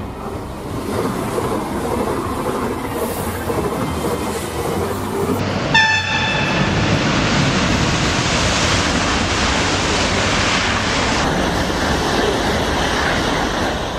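High-speed electric train running past at speed. A brief horn blast about six seconds in is followed by a loud, steady rush of air and wheel noise as it goes by.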